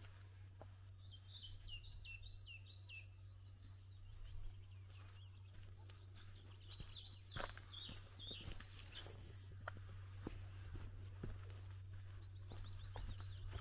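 A small songbird singing three short phrases of quick falling notes, a few seconds apart, over a steady low hum. Faint footsteps and light clicks sound from a person walking on a path.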